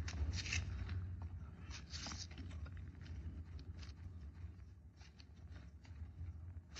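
Paper ballot slips rustling and scratching as they are written on and folded by hand: scattered short, soft rustles over a low steady hum.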